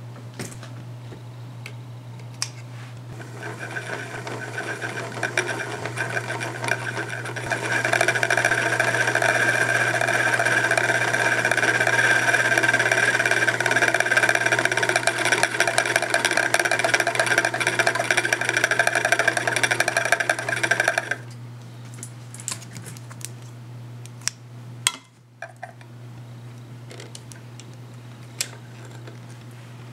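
Singer 221 Featherweight sewing machine running: it builds up speed over a few seconds, runs fast and steady for about thirteen seconds, then stops abruptly. A few light clicks follow.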